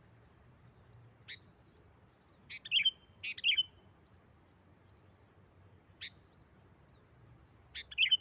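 Sooty-headed bulbul (kutilang) calling: short, sharp chirps in a few clusters, single notes between them, the loudest about a third of the way in and again near the end.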